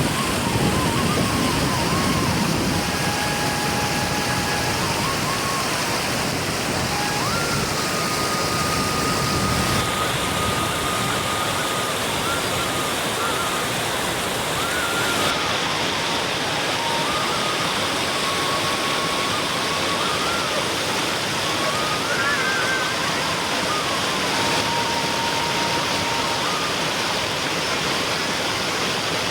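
A slow, soft melody of long held single notes over a steady rushing noise.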